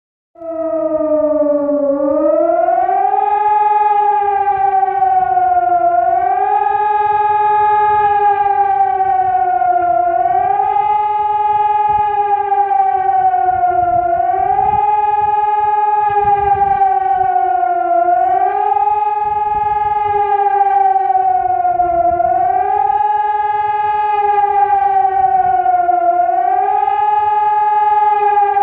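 Civil defence siren on a fire station wailing without a break, its pitch rising quickly, holding, then sliding down, about once every four seconds. This is the continuous rising-and-falling public warning signal of a German test alarm.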